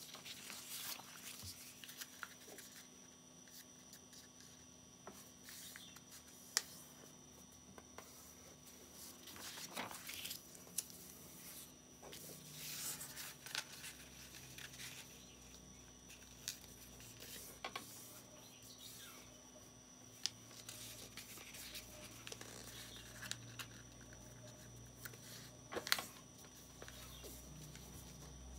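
A sheet of paper being folded and creased by hand: faint, scattered rustles and crinkles with a few sharp ticks.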